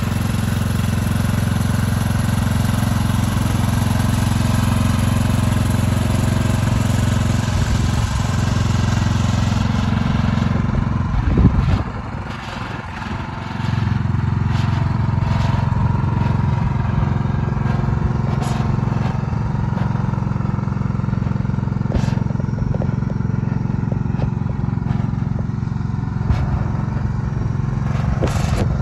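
Scotts 15 hp lawn tractor engine running steadily as the tractor is driven across grass. The engine sound dips briefly about twelve seconds in, then comes back.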